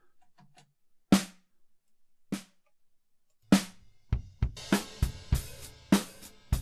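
Multitrack drum recording played back in a DAW. First come two lone snare hits, more than a second apart. From about four seconds in, the full kit plays a steady beat with kick drum, snare and cymbals. The original snare is muted, so the snare heard is a sampled replacement triggered from the recorded hits.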